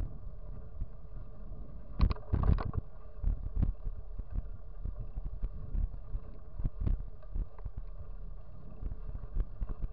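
Wind buffeting the microphone of a bicycle-mounted camera on a fast downhill run, a steady low rumble. Scattered knocks and rattles from the bike over the road surface cut through it, the loudest a cluster about two seconds in.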